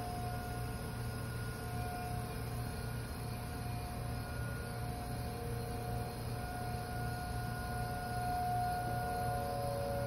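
Outdoor tornado warning siren sounding its monthly test: one steady held tone that swells and fades, with a second, lower tone joining near the end. A steady low hum runs underneath.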